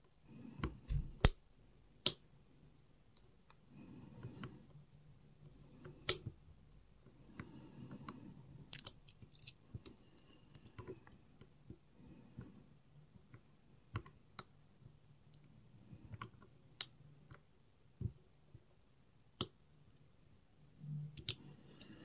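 Lock picks working inside a Robur 2391 safe deposit box lock: irregular sharp metallic clicks and ticks, a few much louder, with soft scraping between them.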